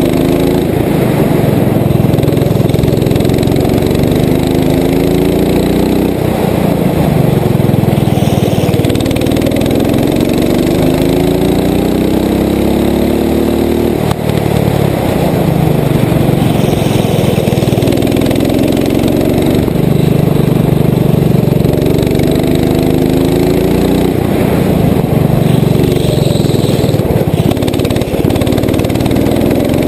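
Rental go-kart's small single-cylinder engine heard from onboard at racing speed, its pitch climbing steadily on each straight and dropping sharply as the driver lifts for the corners, repeating many times through the lap.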